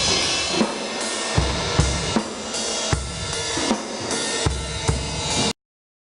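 Drum kit playing: bass drum strikes with snare and a steady wash of cymbals. It cuts off suddenly about five and a half seconds in, leaving dead silence.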